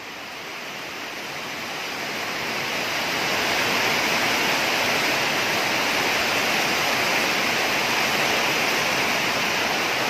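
Heavy thunderstorm rain driven by strong wind: a dense, even rushing noise that builds over the first three or four seconds and then holds steady.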